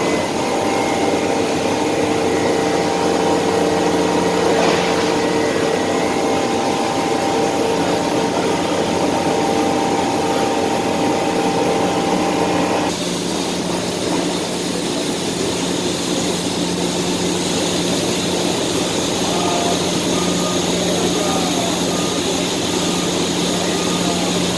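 Steady mechanical drone of industrial machinery at a slaughterhouse loading bay, with several held tones. About halfway through the tones drop out abruptly and a broader, higher hiss takes over.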